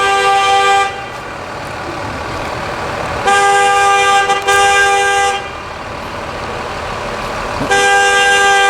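School bus horn sounding in long blasts, two notes together: one blast stops about a second in, a second lasts about two seconds with a brief break in the middle, and a third starts near the end. The driver keeps honking at something in the road, which onlookers say she has room to drive past.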